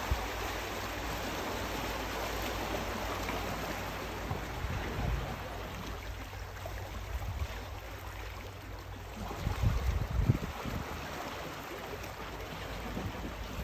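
Steady wash of sea water lapping against breakwall rocks, with a few louder low bumps about two-thirds of the way through.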